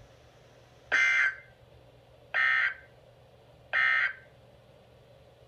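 Emergency Alert System end-of-message code: three short bursts of warbling data tones, each under half a second and about 1.4 seconds apart, signalling the end of the alert.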